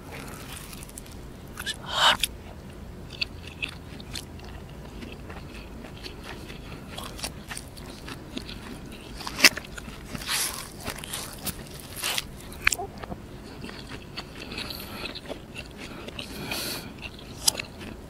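Close-miked mouth sounds of a man biting and chewing flaky roti canai topped with fried egg: soft wet chewing with many scattered clicks and smacks, a louder one about two seconds in and a few more around ten seconds.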